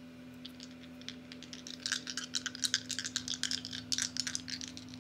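Three astrology dice rattling and clicking together as they are shaken for a roll: a few scattered clicks at first, then a dense run of quick clicks for the last three seconds.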